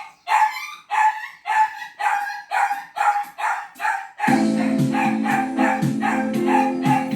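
A small dog barking in short, high yips about twice a second. About four seconds in, instrumental music starts, and the barking carries on over it.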